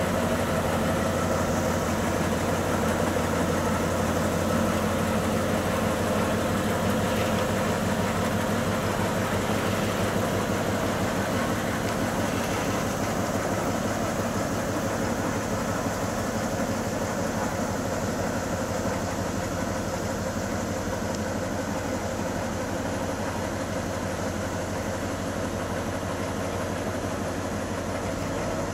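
Diesel engine of a DB class 346 (ex-DR V 60) shunting locomotive idling with a steady, even beat, growing slightly fainter toward the end.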